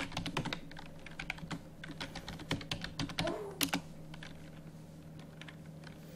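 Computer keyboard keystrokes: a run of quick typing for about four seconds, then a few scattered key presses.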